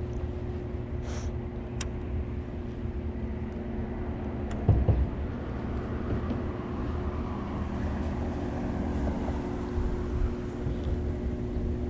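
Steady low mechanical rumble with a constant droning hum, like heavy machinery or an engine running, with one brief knock about five seconds in.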